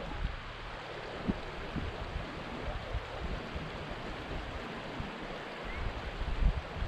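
Steady rushing noise of wind over the microphone, with uneven low rumbling buffets.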